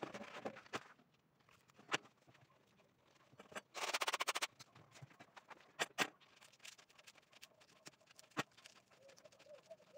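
Abrasive sandpaper strip being handled and flexed: scattered crinkles and light taps, with a half-second burst of rapid ticking about four seconds in.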